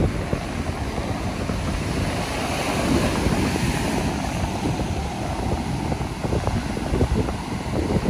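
Ocean surf breaking and washing up a sandy beach, with the hiss of the wash swelling a couple of seconds in. A low, uneven rumble of wind on the microphone runs under it.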